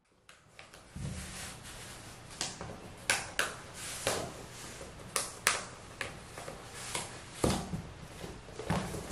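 An exercise mat being handled and unrolled on a laminate floor: a string of separate taps and soft knocks over a low room hum, after about a second of near silence. The loudest knock comes about seven and a half seconds in.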